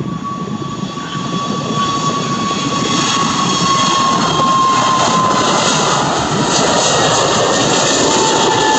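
Airbus A321neo's two CFM LEAP-1A turbofans at takeoff thrust during the takeoff roll and liftoff: a loud jet roar that grows over the first few seconds, with a whine that drops slightly in pitch about halfway through as the airliner passes.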